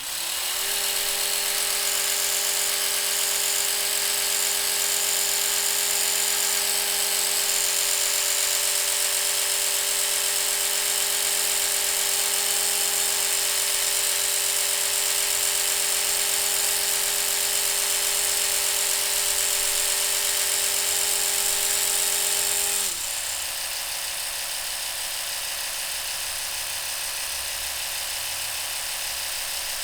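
Oral-B Smart 2000 electric toothbrush switching on and running with a steady buzzing hum. About 23 seconds in, its pitch drops and it runs on more quietly.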